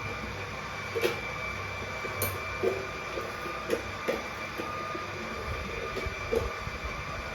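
Electric juicer running with a steady whine, with irregular knocks and clatter.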